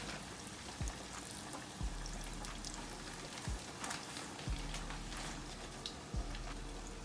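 Flour-dredged rib pieces frying in a pot of hot oil, a steady sizzle full of small crackles and pops. Low bass thumps sound underneath every second or two.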